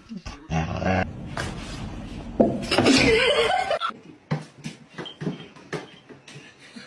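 A person laughing, loudest in the middle, followed by a series of short clicks or taps.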